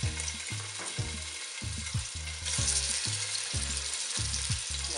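Pieces of marinated goat meat dropped into hot oil in a pot, sizzling as they fry. The sizzle grows louder about halfway through as more meat goes in.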